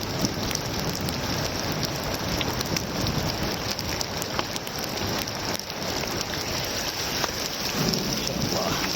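Heavy rain falling steadily, a continuous hiss flecked with many small drop hits.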